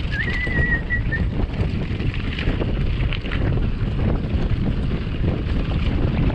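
Wind buffeting the microphone over the rumble and rattle of a mountain bike rolling downhill on a gravel trail, with a brief high whistling tone near the start.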